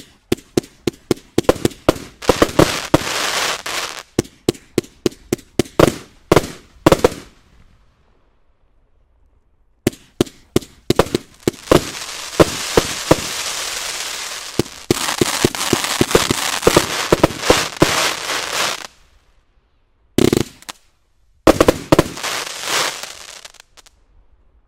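A 30 mm bore firework cake firing volleys of sharp shots, several a second, over a steady hissing rush from the bursting effects. It pauses twice, about eight and nineteen seconds in, and ends with two short volleys.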